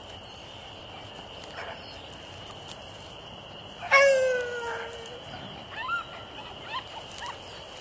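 Beagle baying on a rabbit's trail: about four seconds in, one loud drawn-out bawl that falls slightly in pitch, followed by a few short rising yelps.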